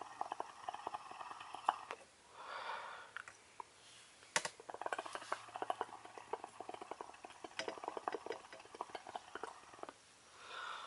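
Hookah water bubbling in rapid small gurgling pops as smoke is drawn through the base, in two draws, the second longer, each followed by a short soft breath.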